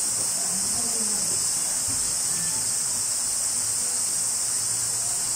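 A steady high-pitched hiss, unchanging throughout, with a faint indistinct murmur low underneath.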